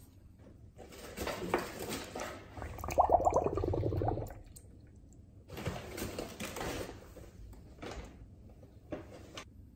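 Brita filter cartridge being pressed and moved under water in a filled filter jug, water sloshing and air bubbles gurgling out of the cartridge. It comes in two bouts, the first a second in and loudest at its end, the second just past the middle, with a couple of short splashes near the end.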